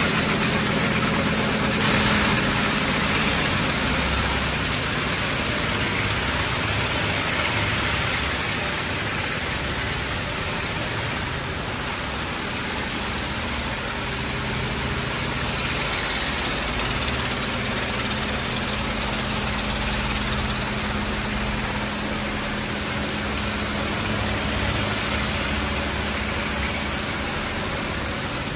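D&S IQ 2.0 touchless in-bay car wash running: high-pressure water spray drumming steadily on a car, over a steady low machine hum.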